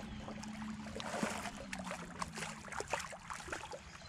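Spinning reel being cranked as a hooked walleye-river fish is brought up to the boat: a scatter of small irregular clicks and light splashes, over a steady low hum that fades out after about two and a half seconds.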